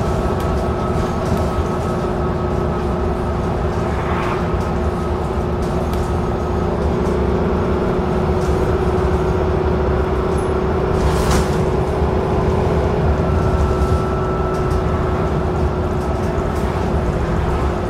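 Dennis Trident double-decker bus heard from the upper deck while under way: a steady engine and road rumble with a thin, steady whine over it. A brief sharp noise cuts through about eleven seconds in.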